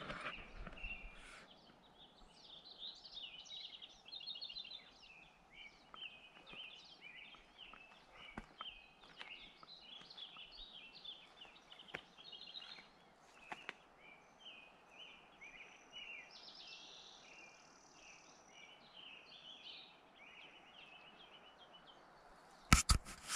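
Several songbirds singing and calling at once: a steady chorus of short chirps and trills over a faint outdoor hush. A few loud sharp clicks come near the end.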